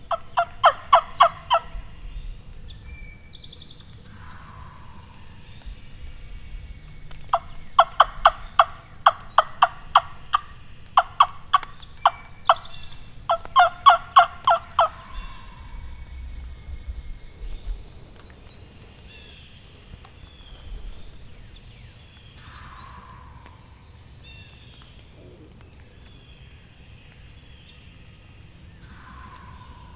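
Turkey yelping: four runs of loud, evenly spaced yelps at about five notes a second, the last one ending about halfway through. Songbirds sing faintly throughout.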